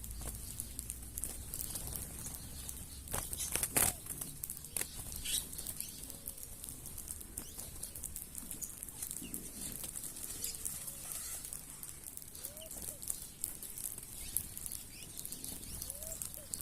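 A flock of birds at scattered cracked corn: many small clicks and rustles, a burst of wing flaps about three to four seconds in, and a few short low calls.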